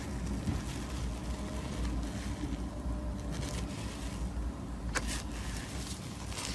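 Slime being handled: soft squishing and crackling over a steady low rumble, with a sharp click about five seconds in.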